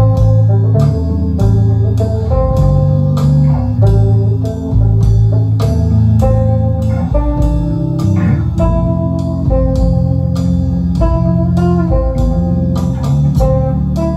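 Instrumental rock jam: electric guitar playing melodic lines over bass and a steady sampled drum beat, about two beats a second.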